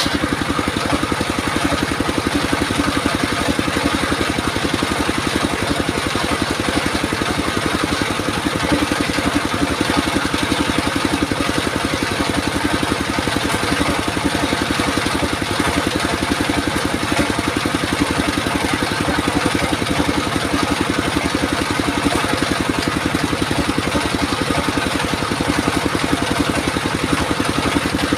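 Engine of a circular sawmill rig running steadily, with a fast, even pulse and no change in speed.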